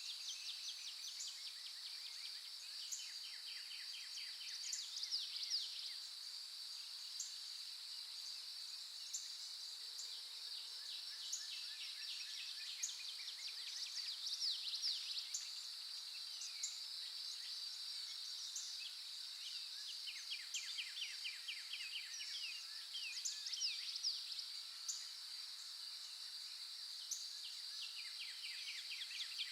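Forest dawn chorus: several songbirds singing, with repeated rapid trills, quick sweeping phrases and sharp chirps coming and going, over a steady high-pitched drone.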